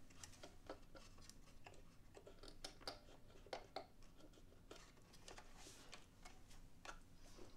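Near silence, with faint, irregular small clicks and rustles of hands working at a semi-hollow guitar's f-hole, tucking wires and string into place.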